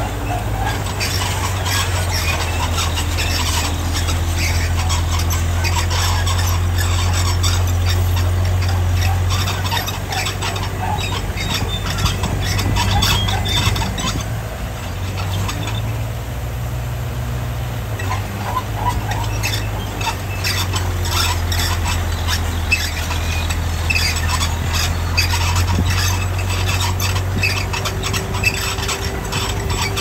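D60 crawler bulldozer's diesel engine running, with its steel tracks squealing and clanking as it moves. The engine note eases about ten seconds in and picks up again a few seconds later.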